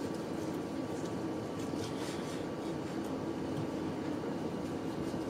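A kitchen knife slicing a boiled octopus tentacle on a plastic cutting board, with a few faint cutting strokes. These sit under a steady low mechanical hum with a faint high whine.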